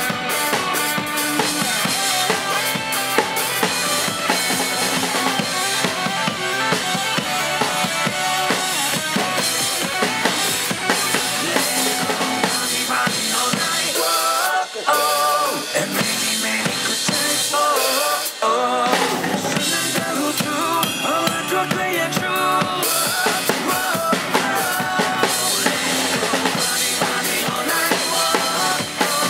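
Acoustic drum kit played live, with kick, snare and cymbals, over a pop-rock backing track from a loudspeaker. About halfway through, the low end drops out for a few seconds in a break before the full band comes back in.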